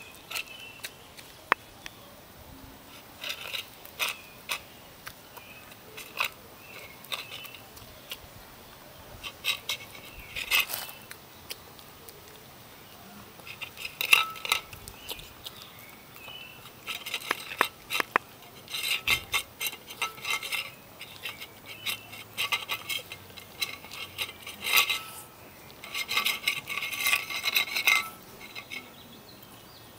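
Small dog eating dog food from a metal bowl: irregular bursts of crunching and clinking against the bowl, in clusters a second or two long with short pauses between.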